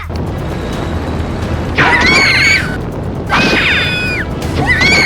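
Cartoon sound effects: a loud, steady rumble with three short pitched calls over it, each under a second long, their pitch bending at the ends.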